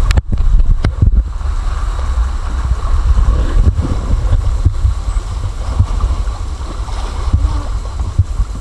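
Rushing whitewater around an inflatable raft, with heavy wind buffeting on the action camera's microphone. Several sharp knocks come in the first second or so.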